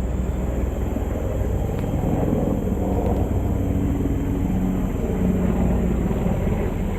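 A steady low engine rumble, like a passing vehicle or aircraft.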